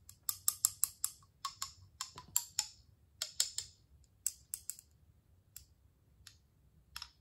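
Quick light clicks and taps as a glass hot sauce bottle is tipped and tapped to coax thick sauce out onto a wooden spoon. They come in rapid clusters for the first few seconds, then thin out to a few scattered ticks, with a last pair near the end.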